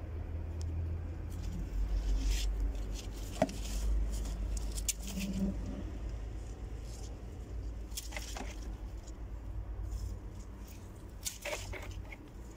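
Leaves and stems of lemon balm rustling and crackling in short scattered bursts as the plant is picked by hand, over a steady low rumble on the microphone.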